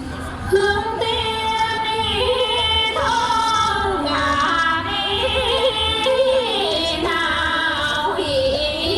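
A woman singing a traditional Vietnamese melody in long, wavering held notes, with music accompanying her.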